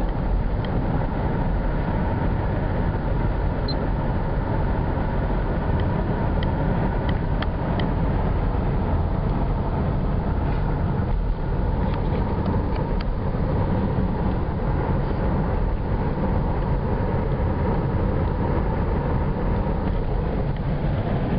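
Steady rumble of a moving car, heard from inside: road and engine noise with a few faint ticks.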